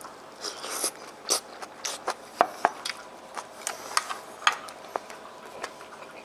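Close-up chewing and mouth sounds of a person eating a mouthful of simmered chicken and rice, with scattered small clicks from utensils and dishware.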